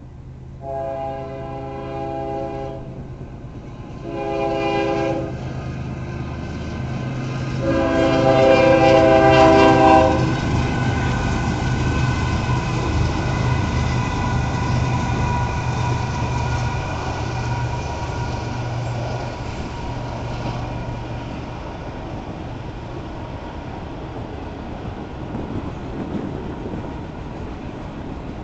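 Union Pacific double-stack freight train passing, led by a GE Evolution-series locomotive. The locomotive's multi-note air horn sounds three times: a long blast, a short one, then a longer and louder one. Then the diesel locomotives run past with a steady low engine note that fades about two-thirds of the way in, followed by the steady rolling and clacking of the container cars' wheels on the rails.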